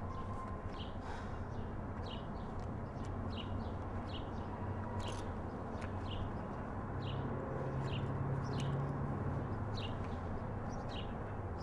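Outdoor ambience of small birds chirping, short calls coming roughly once or twice a second, over a steady low hum.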